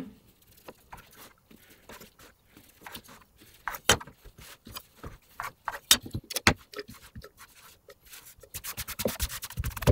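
Kitchen knife cutting the crusts off a stack of toast slices on a wooden cutting board, with scattered knocks and taps of the knife and bread on the board. Near the end a quick run of small ticks as bread pieces are handled into a glass chopper bowl.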